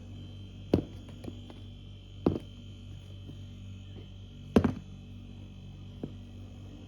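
Three sharp knocks, the last the loudest, with a fainter tap near the end, over a steady low electrical hum.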